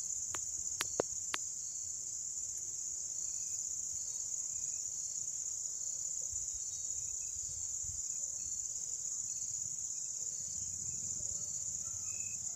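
Dusk insect chorus: a steady, unbroken high-pitched trill. Four sharp clicks fall in the first second and a half.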